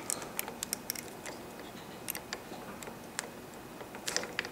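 Light clicks and taps of plastic and metal parts as the throttle cable ferrules are worked out of a Harley-Davidson throttle grip: a quick run of clicks in the first second or so, then a few more scattered through.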